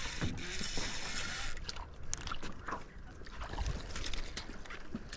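A hooked fish splashing at the water's surface as it is reeled in beside a small boat. There is a steady hiss for the first second and a half, then scattered light splashes and clicks.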